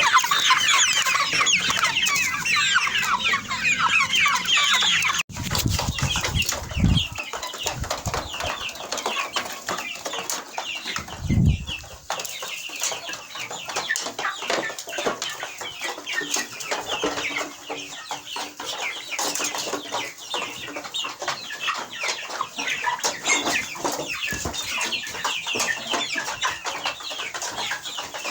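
A crowd of young chicks cheeping together, a dense mass of high-pitched peeps. The cheeping is loudest at first, breaks off suddenly about five seconds in, then carries on quieter with a few dull low thumps.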